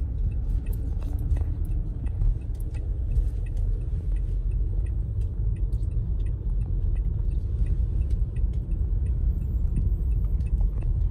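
Steady low rumble of a car's engine and tyres heard from inside the cabin while driving slowly, with faint, regularly spaced ticks above it.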